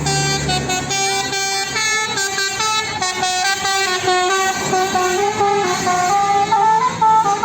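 A bus's 'telolet basuri' musical air horn playing a quick melody, its loud notes stepping up and down several times a second.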